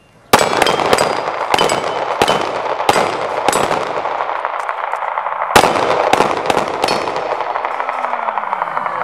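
Handgun shots in a rapid, uneven string, about eight loud shots in the first three and a half seconds and another strong one about five and a half seconds in, echoing off the range walls. Steel plate targets ring as they are hit and knocked down.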